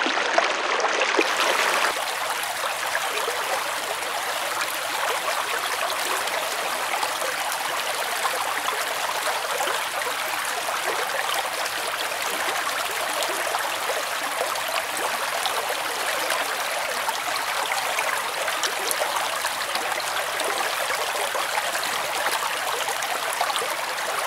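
Stream water running steadily, a dense even rushing; its lower range thins about two seconds in.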